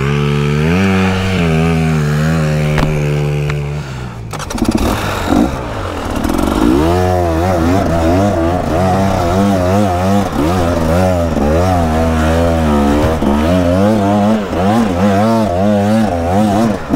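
Dirt bike engine running under load, held at fairly steady revs at first. About four seconds in it briefly drops away, then is revved up and down over and over in quick swings.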